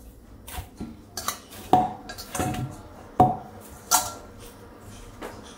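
Thepla dough being kneaded by hand in a stainless steel bowl: the steel bowl clanks and rings several times as the dough is pushed and turned against it.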